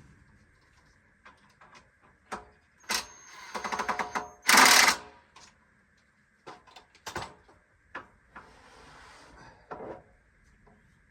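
Cordless drill driving screws into Polywood plastic-lumber chair parts in short runs, with rapid clicking and a loud burst about four to five seconds in, among knocks of the parts being handled.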